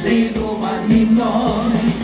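A woman singing live into a handheld microphone over backing music, both amplified through a PA speaker.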